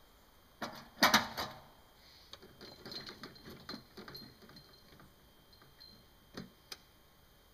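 Metal parts of a Lucas portable sawmill being handled during disassembly: a loud clatter of knocks about a second in, then light irregular ticking and clicking, and two sharp knocks near the end.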